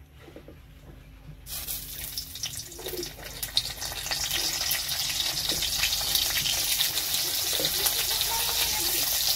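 Hot oil in an iron kadai starts sizzling about a second and a half in as okra pods are laid into it, with a few light knocks as they go in; the sizzle builds and then holds steady.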